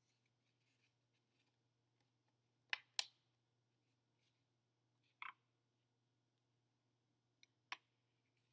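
Near silence with a handful of short, light clicks and taps from craft materials being handled on a paper-covered table: a paintbrush and a plastic container. Two clicks come close together about three seconds in, one about five seconds in, and two more near the end.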